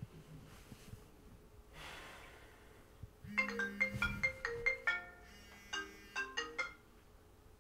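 A smartphone ringing with a marimba-style ringtone: a quick melody of short struck notes in two phrases, starting about three seconds in, signalling an incoming call.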